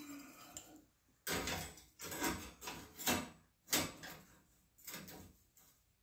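Hands setting a metal angle gauge and square against a steel sawmill band blade: a string of short scrapes and knocks, roughly two a second, starting about a second in.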